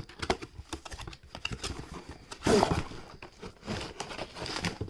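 A boxed wooden toy toolbox set being unpacked by hand: irregular small clicks, taps and rustles of packaging and pieces, with a louder clatter about two and a half seconds in.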